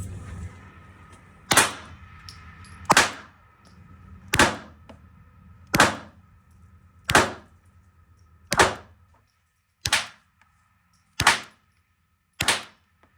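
Nine gunshots fired one after another at a steady pace, about one every second and a half.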